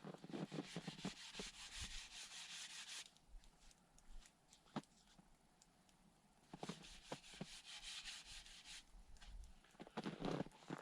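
Faint rubbing and scraping in two stretches, with a few sharp ticks between them and a louder scuffle near the end.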